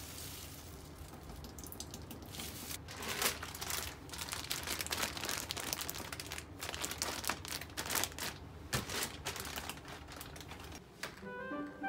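Plastic bag of shredded red cabbage crinkling and crackling as it is handled in plastic-gloved hands. A dense run of crackles starts a few seconds in.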